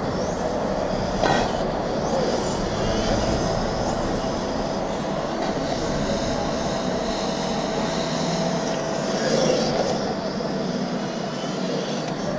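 Electric 1/10-scale RC touring car with a 17.5-turn brushless motor lapping an asphalt track. Its high motor whine rises and falls through the straights and corners over a steady background rush, with one short knock about a second in.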